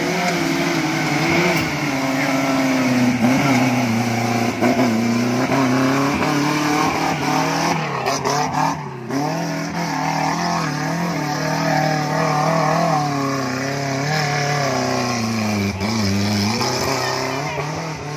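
Off-road 4x4 engine revving hard under load while climbing a slippery mud track, its pitch rising and falling repeatedly as the throttle is worked, with a brief break about halfway through.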